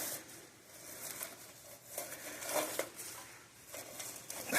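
Faint, intermittent scratching and rustling with light clicks: nesting material being disturbed in a space where a trapped bird is moving about.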